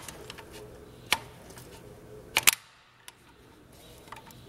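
Keeton seed firmer tail being jammed up into its bracket on a John Deere planter row unit: a few sharp clicks and knocks. The loudest is a quick double click about two and a half seconds in as the tail pops into place.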